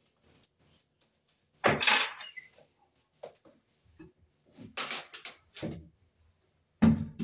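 Flexible metal-armored MC cable rattling and knocking against a metal ceiling junction box as it is handled and fed in: several short clattering knocks, with faint ticks between.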